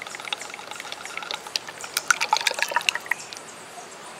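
CVT transmission fluid pouring from a quart bottle into a funnel in the transmission fill tube. The fluid runs steadily, with a quick run of sharper glugs and splashes about two seconds in, and thins to a trickle near the end as the bottle empties.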